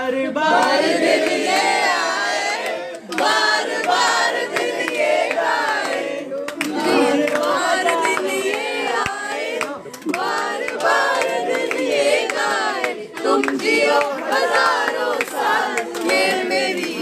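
A group of people singing a birthday song together, with hand clapping.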